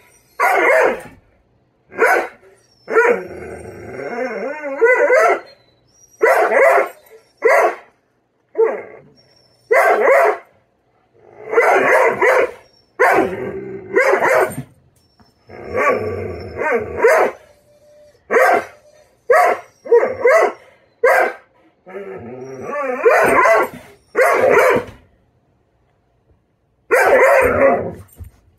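Female Doberman barking and yowling in an irregular string of loud calls, some short, some drawn out with a wavering pitch: an impatient demand for her breakfast, a tantrum.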